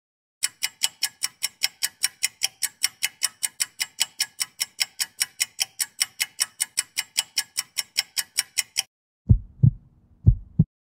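Clock-like ticking, sharp and evenly spaced at about four ticks a second, which stops about nine seconds in. It is followed by three deep thumps near the end.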